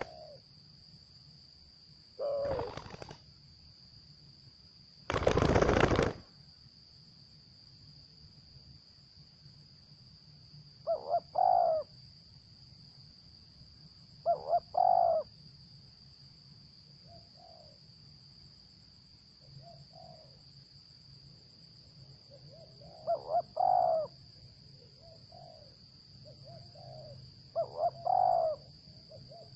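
Spotted doves (tekukur) cooing in short repeated phrases, starting about a third of the way in and coming more often toward the end. Earlier come two loud bursts of wing-flapping or rustling, the second longer and louder.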